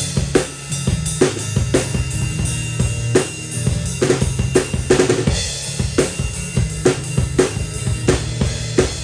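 Instrumental break of a rock song: a drum kit playing a steady beat with bass drum, snare and cymbals over a sustained bass line, with no singing.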